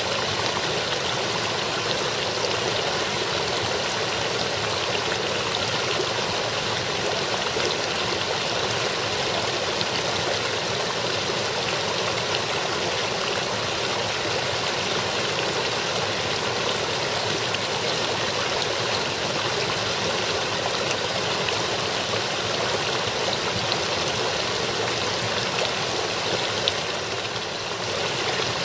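Small, partly frozen brook babbling steadily as water splashes over ice-crusted rocks.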